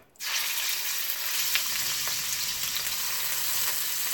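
Raw chicken pieces hitting hot oil in a wok and sizzling; the sizzle starts suddenly a fraction of a second in and then holds steady.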